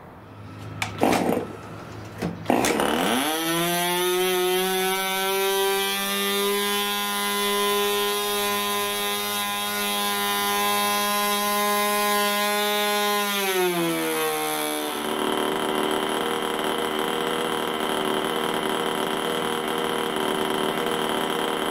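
Late-1970s Thunder Tiger Series III .15 two-stroke glow engine turning an 8x6 propeller. After a couple of brief noises it starts about two and a half seconds in, climbs quickly and runs at a high, steady pitch. About two-thirds of the way through it drops to a lower, rougher-sounding run.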